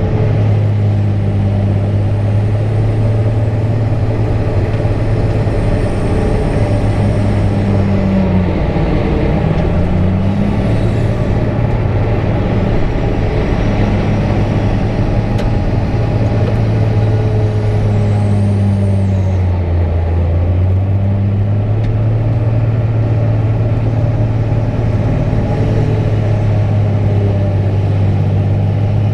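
A heavy engine running steadily. Its pitch sags briefly twice, about nine seconds in and about twenty seconds in.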